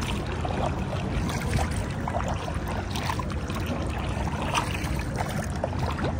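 Paddling a small boat on the sea: water splashing and trickling off the paddle strokes, over a steady low rumble.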